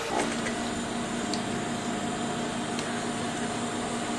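Steady electric hum with a low tone and a higher tone running evenly, and no stitching sound, as the sewing machine stands between runs.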